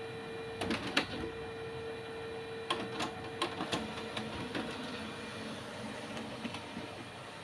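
HP Color LaserJet Pro MFP M176n colour laser printer running a copy job: a steady hum with a series of sharp mechanical clicks as the page goes through. The hum drops out about three and a half seconds in.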